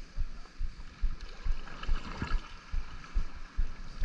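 Water lapping and gurgling against a plastic sit-on-top kayak as it is paddled, with irregular low thumps against the hull.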